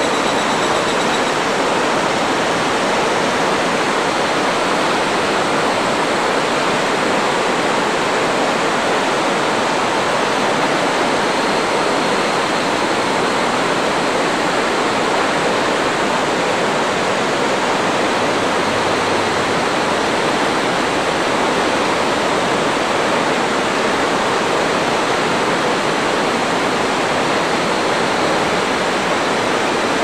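Steady rush of river rapids in a gorge, an even, continuous roar of water.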